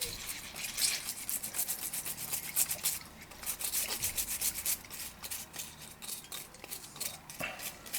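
Quick back-and-forth scrubbing strokes, several a second, as a small circuit board is cleaned over with solvent.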